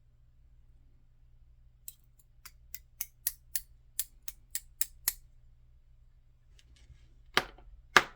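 Small sharp metal clicks in a quick run of about a dozen, roughly four a second, then three louder knocks near the end: metal lock parts and tools being handled while the pins are worked out of a disassembled EVVA ICS lock cylinder.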